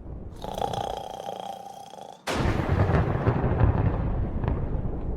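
Thunder: a low rumble, then a sudden loud thunderclap about two seconds in that rolls on. A steady held tone sounds just before the clap.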